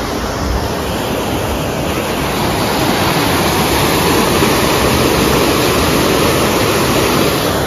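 Water rushing through a narrow concrete sluice channel of a small dam: a steady, loud rush that grows a little louder a couple of seconds in.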